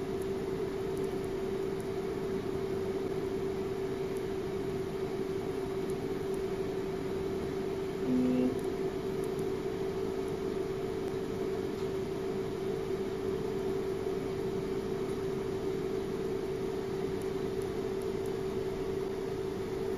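DV8200 spectrophotometer humming steadily with a constant tone while it runs its diagnostic self-test. A brief low buzz comes about eight seconds in.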